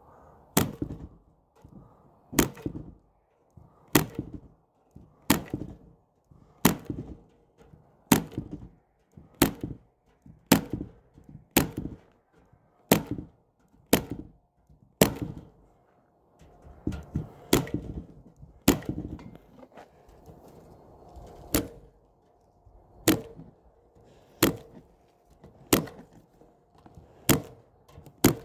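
Corded electric staple gun firing staples through wire screen into a wooden frame: a sharp snap about every one and a half seconds, around twenty in all.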